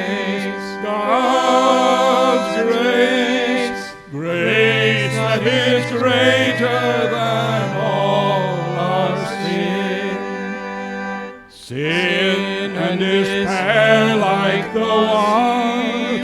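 A hymn sung by a man with pipe or electronic organ accompaniment. Held organ chords sit under a singing voice with vibrato, with two brief breaks between phrases.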